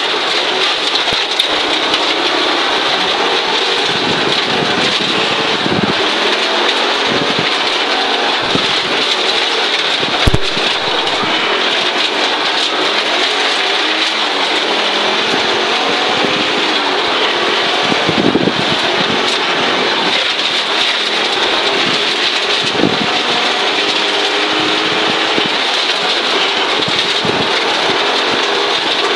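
Audi Quattro Group B's turbocharged five-cylinder engine running hard, heard from inside the cabin, its pitch rising and falling as the car drives a gravel stage, over a constant loud rush of gravel and road noise. A few sharp knocks stand out, the loudest about ten seconds in.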